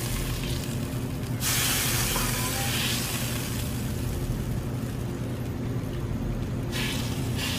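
Propane burner running steadily under a large steel disco pan of simmering sauce, a low hum under a constant hiss. The hiss grows louder for about a second and a half, about a second and a half in, and again briefly near the end.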